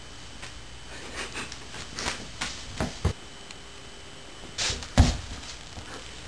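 A few scattered soft thumps and rustles, with a sharp thump about five seconds in.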